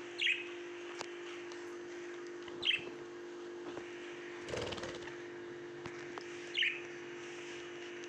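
Young budgerigars giving three short, falling chirps a few seconds apart, with a brief rustling noise about halfway through.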